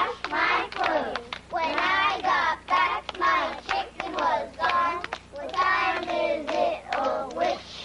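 A group of young children singing a song together, clapping their hands along.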